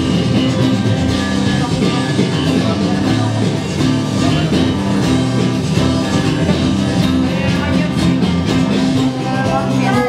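A live band playing a pop-rock song, with an acoustic guitar strummed through a steady instrumental passage.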